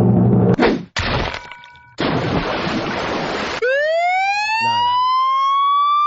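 Produced sound-effects mix played back: a held musical chord is cut off with a hit under a second in, a loud burst of noise follows, then a siren-like wail rises steadily in pitch from about halfway through.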